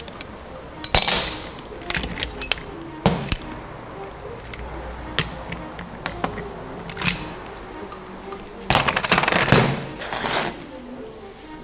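Sharp metallic clinks and knocks of steel workshop parts, a bearing puller and a freshly pulled tapered roller bearing, handled on a steel workbench, with a longer clattering stretch about nine seconds in. Soft background music underneath.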